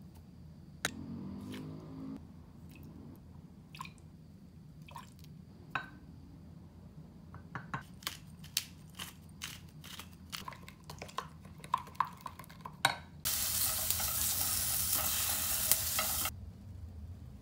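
A spoon tapping and clinking against a glass measuring cup as chili-powder seasoning is added and mixed, in a quick run of small clinks. Then sliced onions sizzle loudly in perilla oil in a stainless steel pan for about three seconds, cutting off suddenly.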